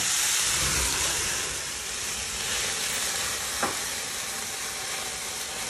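Mushrooms and shallots with cognac sizzling hard in a hot frying pan as the brandy flames up on the gas burner (flambé, burning off the alcohol). A dense hiss, loudest with a low rumble in the first second, then easing a little, with one short squeak about two-thirds in.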